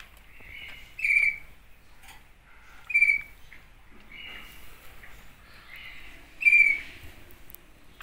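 Shrike calling: three loud, short, harsh calls spaced a couple of seconds apart, with fainter calls of the same kind in between.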